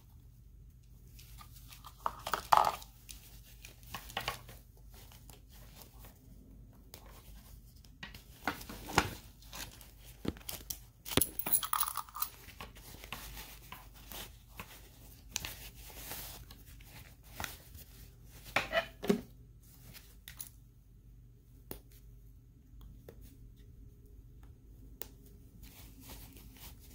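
Handling noise from dressing a GI Joe action figure: its cloth fatigues rustle and scrape, with scattered small clicks from the plastic figure and its accessories. A few short, louder rustling bursts come about 2, 9, 11 and 19 seconds in.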